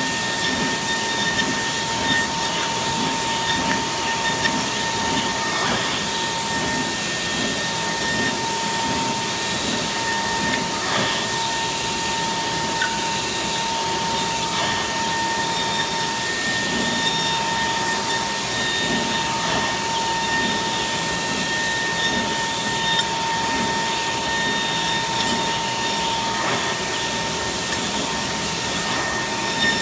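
Kongsberg XP cutting table's milling spindle running at 55,000 rpm, a steady whine, as it routes 1-inch Gatorfoam at 500 inches per minute. Under it a steady rushing noise. The whine fades briefly a few times.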